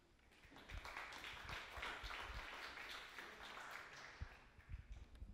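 Small audience clapping, starting about half a second in and dying away after about four seconds.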